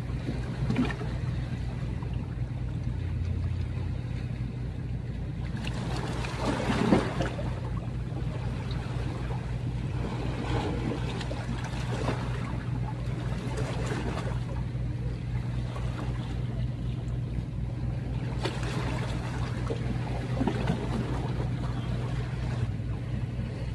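A boat engine drones steadily at a low pitch with an even throb. A few faint brief rustles come over it, the clearest about seven seconds in.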